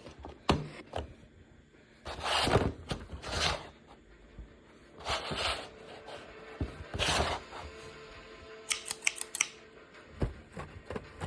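Toy packaging being handled and opened: several short swishes of rustling or scraping plastic and cardboard, with scattered sharp clicks and a quick run of clicks a little before the end.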